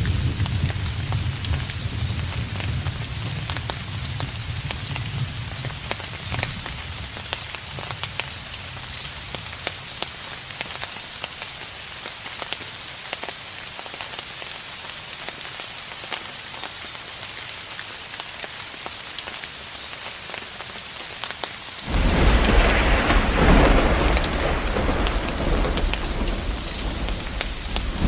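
Steady rain falling, with a constant hiss and fine drop ticks, under a distant thunderstorm. A low thunder rumble fades out over the first several seconds, and about three-quarters of the way through a new roll of thunder breaks in suddenly and rumbles on to the end.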